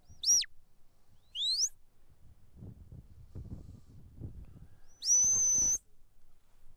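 Handler's shepherd's whistle giving commands to a working border collie driving sheep. There are three sharp, high-pitched whistles: a short one that rises and then swoops down, a quick rising one, and later a longer held note.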